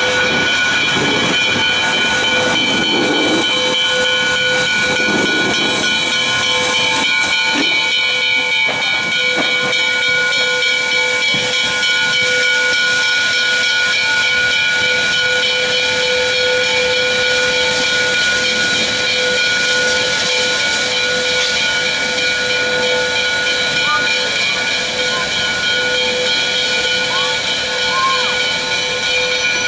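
Canadian National 3254, a 2-8-2 Mikado steam locomotive, hissing steam steadily, a loud continuous hiss with several held high tones in it.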